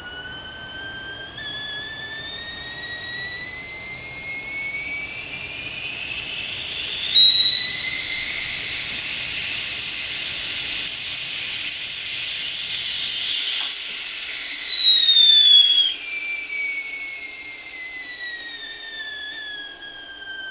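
Whistling kettle at the boil. The whistle rises in pitch and loudness for several seconds, holds a loud, steady high note, then slides back down in pitch and fades.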